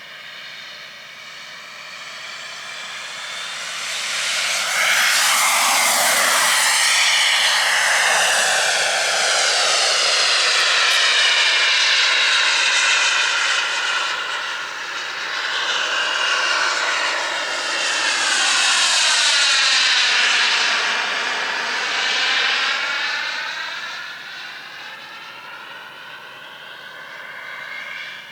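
Jetcat P100RX model jet turbine of an RC F-15 in flight: a steady turbine whine and rush that swells about four seconds in and stays loud through close passes, its pitch sweeping down and back up as the jet goes by. It fades again near the end.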